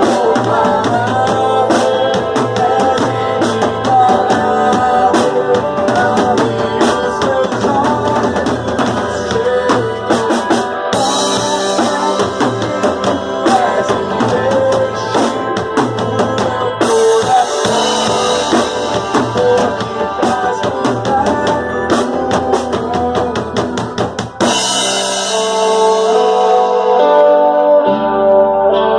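Live band music driven by a drum kit, bass drum and snare keeping a steady beat under melodic instruments. About three-quarters of the way through the drums stop and held guitar chords carry on alone.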